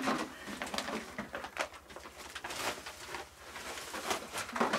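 Plastic bottle fish traps crinkling and knocking together in quick, irregular clicks as they are handled.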